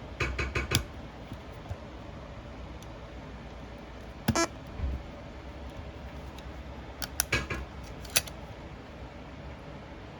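Sharp plastic clicks and clunks from handling a Panasonic SX5 Walkman cassette player: a quick cluster at the start, one about four seconds in, and a few more around seven to eight seconds in, over a steady low hum.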